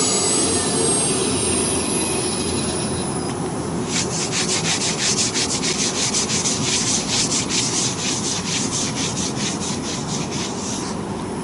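A CNC router running with its spindle spinning. From about four seconds in until near the end, a rasping sound pulses about four times a second over the machine's steady noise.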